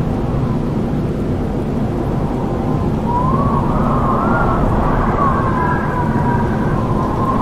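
Strong wind with a low, rumbling gusting noise. From about three seconds in, a whistling howl rises and falls in pitch over it.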